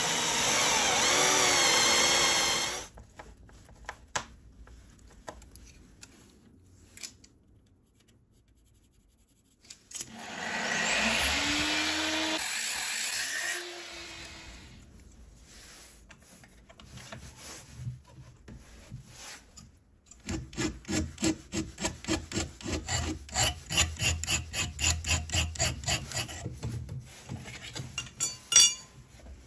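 Cordless drill running a countersink bit into an aluminium channel for the first few seconds. About ten seconds in, a power tool's motor whines up to speed and runs for a few seconds. Near the end come about eight seconds of rhythmic scraping strokes, about two and a half a second.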